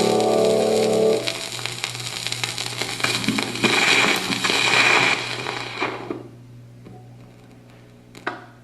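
Califone portable record player: a record's music ends about a second in, followed by several seconds of loud, scratchy crackling from the stylus and speaker that fades out about six seconds in. A steady low hum from the player remains, with a single click near the end.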